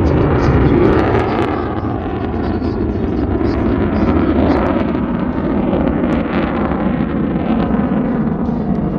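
Loud, steady jet noise from an F-35A's Pratt & Whitney F135 afterburning turbofan as the jet flies through its display, the pitch shifting now and then as it passes.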